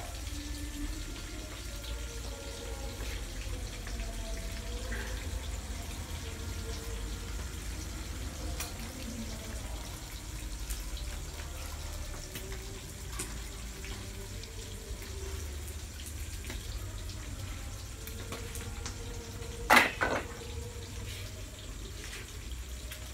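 Steady low rumble and hiss of a lit gas stove burner, with faint trickling of vinegar poured from a glass bottle into a ceramic bowl. A sharp double clink near the end.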